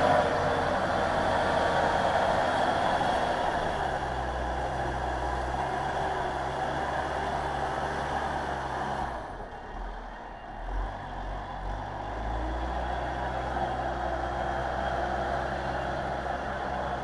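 Everun ER1500F compact wheel loader's engine running steadily as it plows heavy wet snow. It dips quieter for a few seconds just past halfway, then picks up again.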